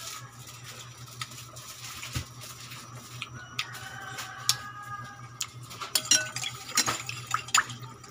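Scattered light clicks and metallic clinks around a stainless steel pan of squid adobo simmering on a gas stove, coming more often in the second half, over a low steady hum.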